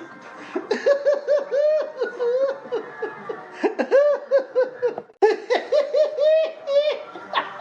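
Laughter sound effect: high-pitched laughing in quick runs of repeated 'ha' syllables. It breaks off abruptly about five seconds in and a new bout of laughter starts at once.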